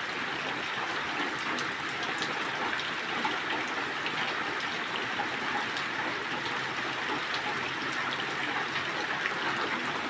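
Steady rain falling, an even hiss with scattered ticks of drops striking.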